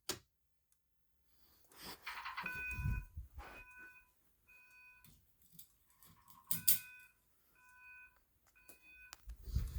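Fire alarm speaker strobe sounding the code 3 (temporal-3) evacuation tone: two groups of three short beeps with a pause between them, fairly faint. A couple of sharp clicks come with the start of each group.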